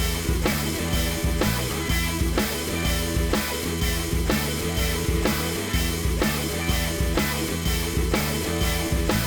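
Rock background music with electric guitar, bass and a steady drum beat.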